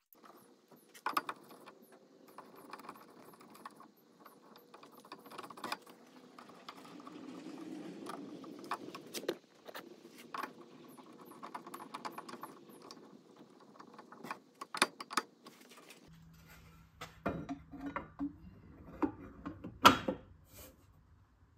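Handling noise from wiring work in an inverter's terminal compartment: wires rustling and scattered small clicks. Near the end the inverter's lower cover plate is fitted back on with a sharp clack.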